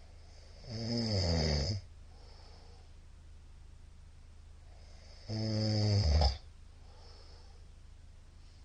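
A middle-aged man snoring in his sleep: two loud snores about four and a half seconds apart, each lasting about a second, the first falling in pitch. A soft breath follows each snore.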